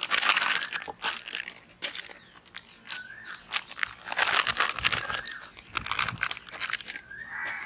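Plastic flour packet crinkling as it is squeezed and shaken to pour gram flour into a steel bowl, in uneven bursts of rustling.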